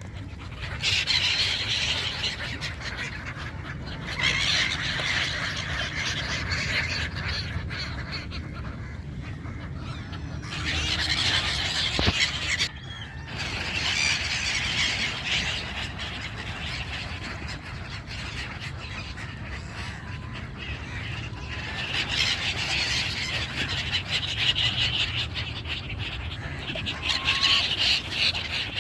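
A flock of migratory birds calling together in dense, squealing bouts that swell and fade every few seconds, with a low steady rumble underneath.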